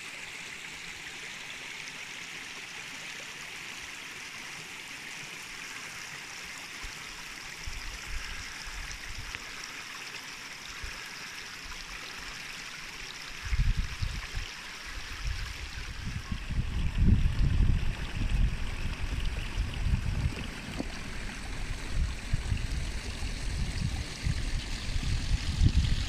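Shallow mountain stream running over stones, a steady rush of water. From about halfway, irregular low buffeting on the microphone comes and goes and is louder than the water.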